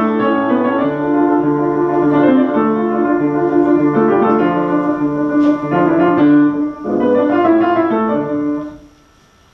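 Two acoustic pianos playing a concerto together, one the young soloist's part and the other the orchestral part. The music comes to a close, and the final chord dies away near the end.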